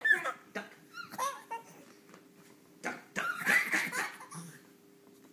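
Young child laughing and giggling in short bursts, with the longest and loudest burst about three seconds in.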